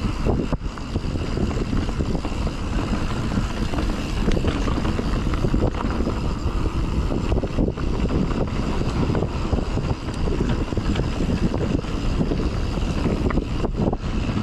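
Mountain bike descending a dirt singletrack trail: wind rushing over the action camera's microphone as a steady, loud rumble, with tyre noise on the dirt and scattered short clicks and rattles from the bike.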